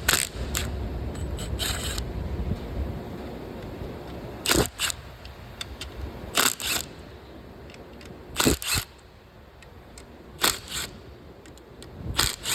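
Hand tools working the 8mm camshaft-holder bolts on a Polaris Ranger 1000 SOHC engine head: sharp metallic clicks, mostly in quick pairs, about every two seconds.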